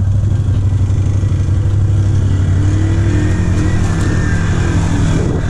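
ATV engines running with a steady low drone, and an engine revving up about three seconds in.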